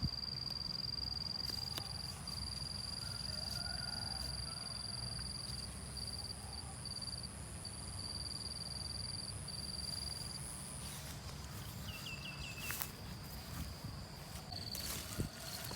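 Insects trilling steadily in a high, continuous tone, with a fainter higher tone above it that stops about two-thirds of the way through. Underneath is a low steady rumble, and there are a few clicks near the end.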